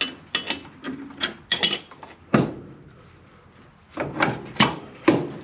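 A steel C-frame ball joint press and its adapter cups knocking and clacking against a truck's lower control arm as the press is fitted and repositioned by hand. There is a run of sharp metal knocks in the first two and a half seconds, a pause, then a few more about four seconds in.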